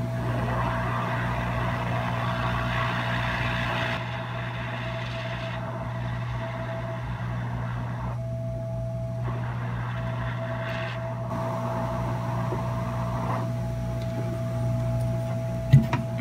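Hot air rework station blowing a steady hiss of air while a new capacitor is soldered onto its pads, over a low electrical hum and a faint steady whine. A sharp click sounds near the end.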